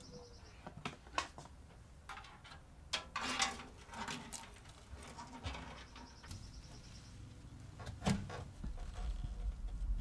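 Light clicks and knocks of a motherboard with its tower CPU cooler being lowered into a steel PC case and shuffled into line with the standoffs. A faint high pulsed chirp sounds twice.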